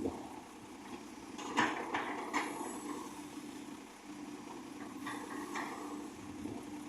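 Excavator's diesel engine running steadily, with three sharp metallic knocks in quick succession about a second and a half in and two more around five seconds in.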